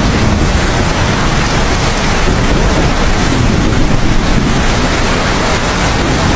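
Heavy, steady rain with a constant deep rumble underneath.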